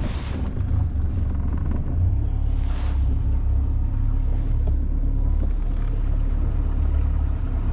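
Fishing boat's motor running steadily underway, a low rumble mixed with wind and water noise, with a brief rush of hiss about three seconds in.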